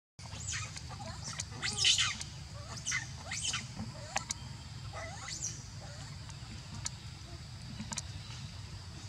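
A bird chirping: a run of short, quick, high-pitched chirps in the first five seconds or so, followed by a few sharp ticks, over a steady low hum.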